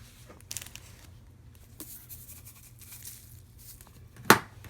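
Quiet rustling and small clicks from a plastic cooking bag and seasoning containers being handled, with one sharp knock near the end.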